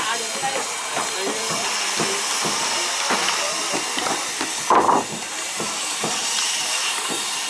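Loose wooden planks knocking and clattering as they are handled and dropped on a timber boat deck, a short knock every second or so, with one louder clatter about five seconds in. A steady hiss lies under it all.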